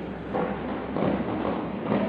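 Fireworks display with a steady rumble and a few faint crackles, without sharp bangs.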